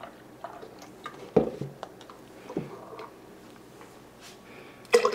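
Kitchen container handling: half-and-half being poured through a plastic funnel into a jar, with a couple of soft knocks as the carton and funnel are moved on the counter and a louder clatter near the end.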